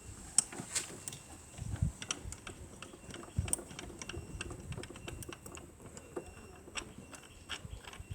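Irregular light metallic clicks and taps from hand tools working on the engine's spark plugs, with a few dull knocks.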